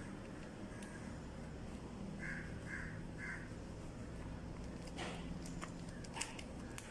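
A bird calling three times in quick succession, followed by a few light clicks or taps.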